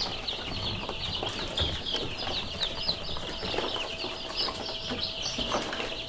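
A brood of week-old chicks peeping continuously: many high, short, falling chirps overlapping. Scattered faint clicks and rustles of the chicks being tipped out of a carton onto wood-shaving litter.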